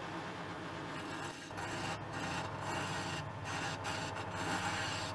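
Wood lathe running with a steady motor hum while a hand-held turning chisel cuts the spinning wooden blank: a hissing scrape that starts about a second in and comes and goes in short strokes.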